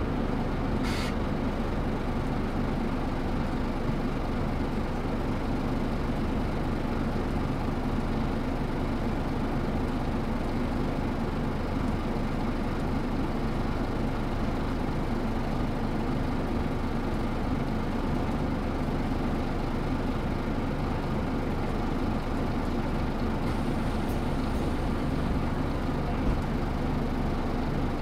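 Scania L94UB bus's 9-litre five-cylinder diesel running steadily, heard from the rear of the passenger cabin: an even drone that holds one pitch, with no revving or gear change. One light click about a second in.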